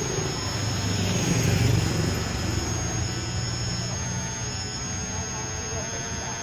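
Electric motors and gears of a radio-controlled toy excavator whirring steadily as the arm digs and lifts a clump of soil, loudest about a second and a half in.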